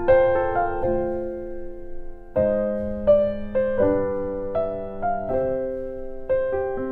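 Slow, gentle piano background music: single notes and chords struck one after another, each ringing and fading.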